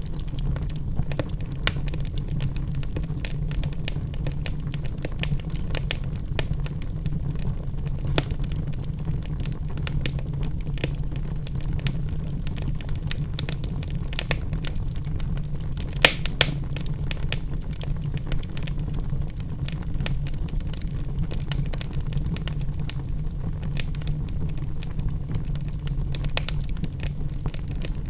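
Wood fire burning in a fireplace: a steady low rush of flame with many small crackles and pops from the logs, and one sharper pop about sixteen seconds in.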